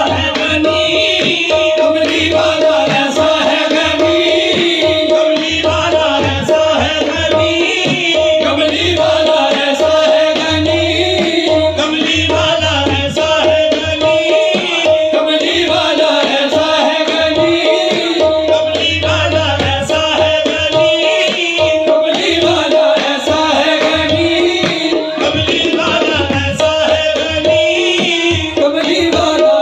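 Live qawwali music: harmoniums playing over a driving tabla rhythm, with a steady held note running underneath.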